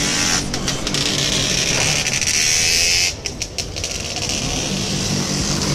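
Several motorcycle engines running and revving as riders pull away in a group, with a brief dip in the sound about three seconds in.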